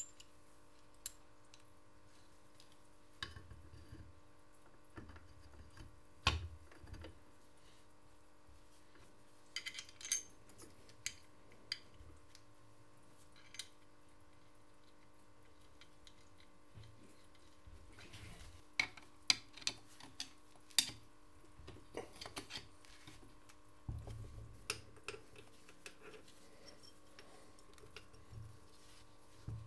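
Scattered metallic clicks and clinks of small steel engine parts and tools being handled and fitted onto a moped engine crankcase, with a few dull knocks of the casing against the wooden bench, over a faint steady hum.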